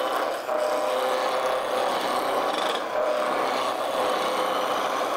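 A gouge cutting into a square wood blank spinning on a Shopsmith Mark 7 lathe, knocking the corners off to round it: a steady, rough, rasping cut. The lathe's motor runs underneath with a faint steady whine.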